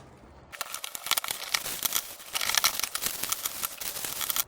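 Paper-and-plastic packaging crinkling and rustling as packs of crackling-ball fireworks are handled and dumped out, starting about half a second in and cutting off abruptly at the end.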